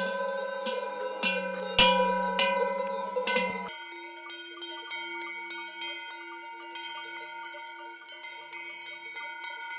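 Cowbells clanging on a herd of walking cattle, several bells at different pitches ringing over one another with many strikes a second. The set of bell pitches changes about four seconds in.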